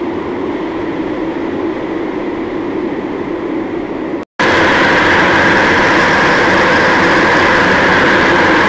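Heavily distorted, effects-processed cartoon audio: a loud, steady, harsh rushing noise with no clear voice or tune. It cuts out for a moment about four seconds in and returns louder and brighter.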